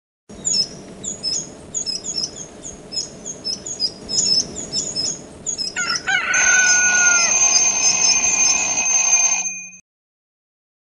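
Small birds chirping in quick, high notes, then about six seconds in a rooster crows one long cock-a-doodle-doo that cuts off suddenly near the end.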